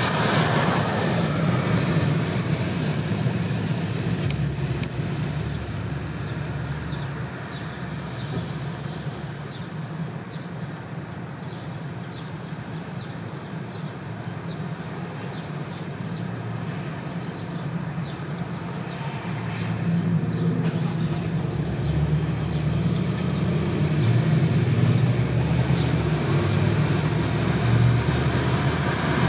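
Car driving through city streets, a steady hum of road and engine noise that eases off for a while and builds up again after about twenty seconds. During the quieter stretch, light ticks repeat about one and a half times a second.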